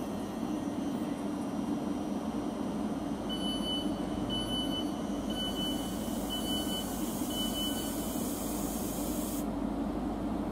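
Class 43 HST power car's MTU diesel engine running as the InterCity 125 approaches, a steady drone with rail noise. About three seconds in, five short high beeps sound about a second apart.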